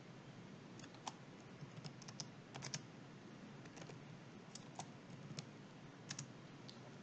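Faint computer keyboard typing: a dozen or so separate keystrokes at an uneven pace.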